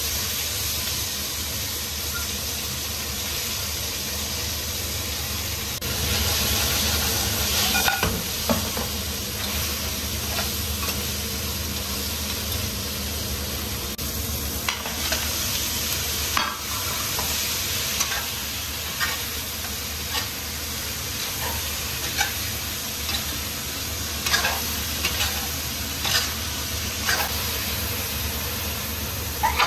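Oil sizzling steadily in a wok as swimming crabs fry, and then chilies and ginger, with a louder stretch about a quarter of the way in. Through the second half a spatula scrapes and knocks against the wok many times as the food is stirred.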